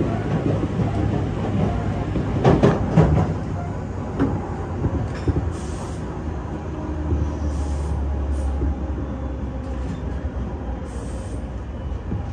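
Tobu Urban Park Line local train running, heard from inside the carriage: a steady rumble of wheels on rail, with a short cluster of sharp knocks about two and a half seconds in.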